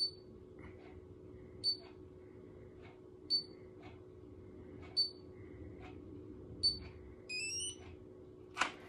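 BaByliss automatic curler beeping its curl timer, one short high beep about every second and a half while the hair is held inside. About seven seconds in it gives a quick rising run of beeps, the signal that the curl time is over, followed by a click just before the end.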